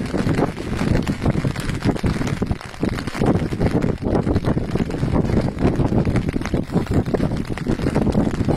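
Strong, gusty wind buffeting the microphone in irregular surges.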